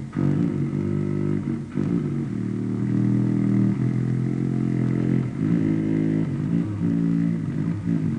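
A low, buzzing drone with a stack of overtones, its tone shifting every second or two, played live in an experimental music performance.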